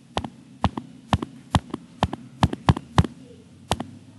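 A dozen or so sharp clicks at an uneven pace: taps on the computer while picking a pen colour from the drawing menu.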